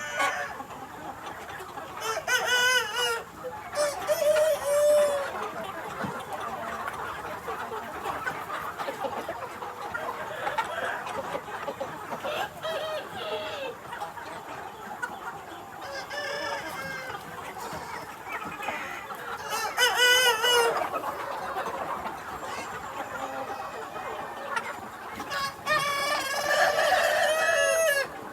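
Mia chickens, a Vietnamese breed: roosters crowing several times, loudest about two seconds in, around twenty seconds in and near the end, over the steady clucking and calling of the flock.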